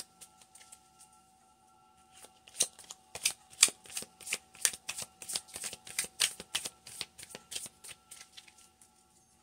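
A deck of tarot cards being shuffled by hand: a run of sharp card slaps, about three or four a second, starting about two seconds in.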